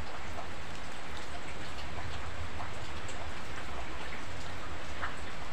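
Steady rain falling: an even hiss with scattered drop ticks.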